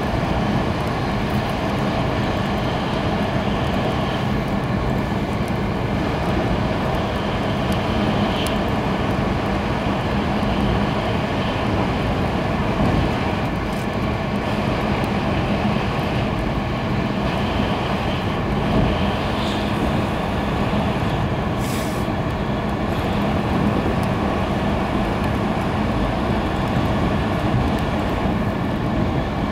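Steady cabin running noise of an E2-series Shinkansen at high speed: a dense rumble and rush of wheels and air with a constant low hum, and a few faint brief ticks.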